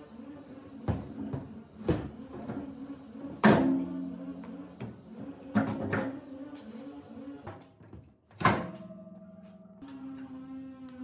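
Several sharp metal knocks and clanks from handling the steel compressor tank and its cast wheels, the loudest about three and a half seconds in and another near eight and a half seconds, over background music with held low notes.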